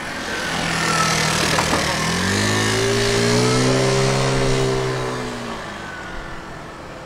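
A motor vehicle passing close by. Its noise swells and fades over a few seconds, and its engine note rises and then falls as it goes past.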